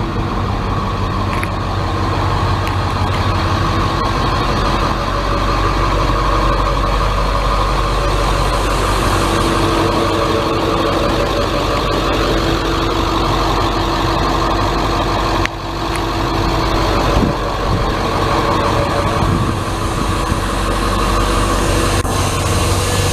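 A school bus's International T444E turbo-diesel V8 idling steadily, with a constant low hum. There is a short break in the sound about fifteen seconds in.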